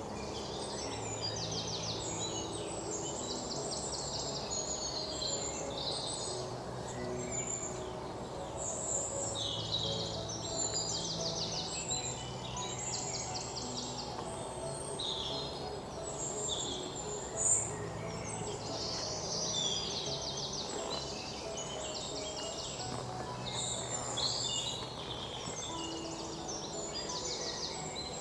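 Many songbirds singing and chirping, with rapid trills, over soft, slow instrumental music of long-held low notes. There is a single sharp click about halfway through.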